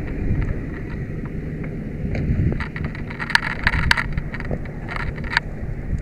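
Steady low rumble of wind on the microphone and the fire engine's idling diesel. From about two and a half to five and a half seconds in there is a quick run of clicks and clanks from a firefighter's gear as he walks.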